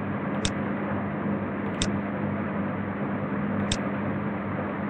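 Three sharp computer mouse clicks, spaced a second or two apart, over a steady hiss with a low hum.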